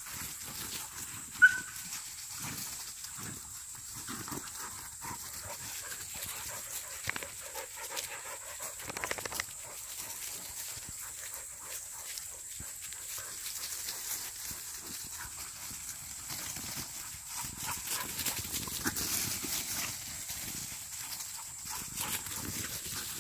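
Young Korean hunting dogs (dansung-gae) playing and chasing over dry leaves: scuffling and rustling with brief growls, and one sharp yelp about a second and a half in, the loudest sound.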